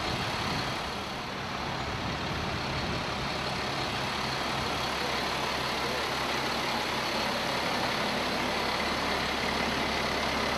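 Utility service truck's engine idling steadily, an even low hum.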